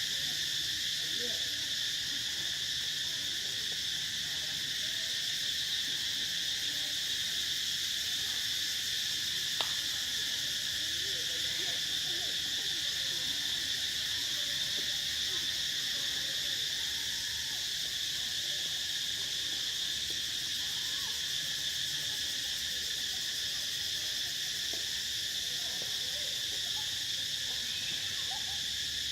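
Insect chorus in forest: a steady, continuous high drone in several layered pitches that never breaks, with one small click about ten seconds in.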